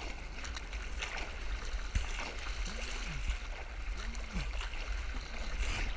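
Water sloshing and splashing against a surfboard as a surfer paddles through chop, heard right at the water surface with a steady low rumble on the camera microphone. A sharp knock comes about two seconds in.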